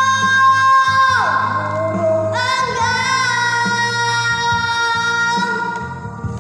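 A child singing solo over backing music, holding one long note that falls away about a second in, then a second long note with vibrato from midway to near the end.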